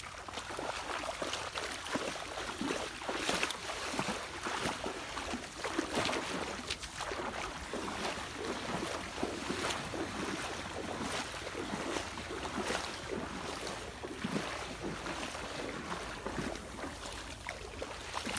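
Legs wading through shallow, muddy water, with irregular splashing and sloshing at each step.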